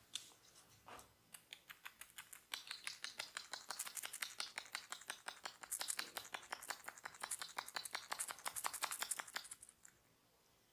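Rapid percussive tapping of a barber's hands on the body during an oil massage: a quick, even run of light strikes, several a second. It starts about two and a half seconds in after a few separate taps and stops near the end.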